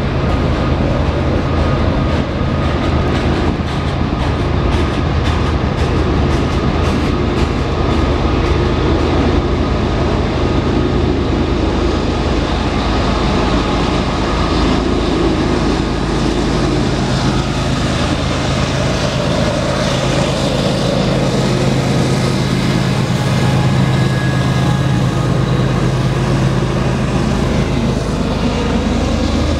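Loaded coal train rolling past: steady rumble and rail noise of the cars, with rapid clicking of wheels over the rail. A diesel locomotive's low engine drone grows stronger in the second half.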